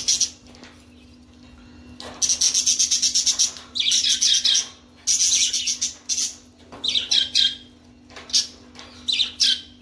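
Parrots calling: about six bursts of shrill, rapid chirping, starting about two seconds in, over a steady low hum.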